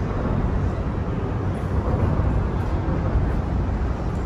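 Steady low rumble of city road traffic, with no distinct events standing out.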